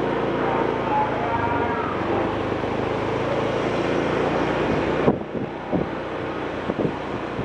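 Engine of a moving road vehicle running steadily, with wind noise on the microphone. About five seconds in, the sound drops abruptly to quieter wind rumble with a few short thumps.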